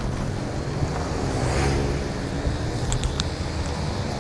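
Wind buffeting an action camera's microphone and rumble from riding a mountain bike. A passing motor vehicle's engine swells and fades about a second and a half in, and there are a couple of sharp clicks near three seconds in.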